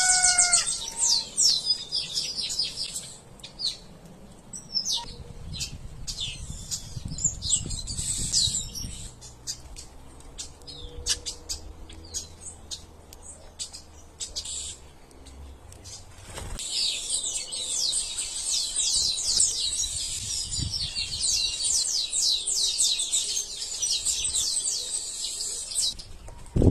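Small songbirds chirping at a feeder: many quick, high chirps, thick for the first few seconds and again through the last ten seconds, sparser in between.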